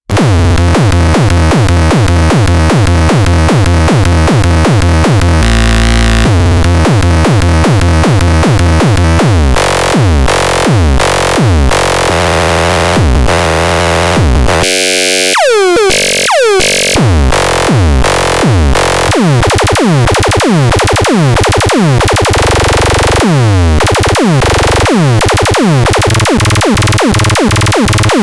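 Electronic music played on a groovebox: a synthesizer pattern over a drum-machine beat of quickly repeating hits that drop in pitch, with a brief break of sweeping tones about halfway through.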